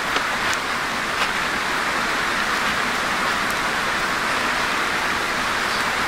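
Steady rushing hiss of a creek's flowing water, with a few light ticks in the first second.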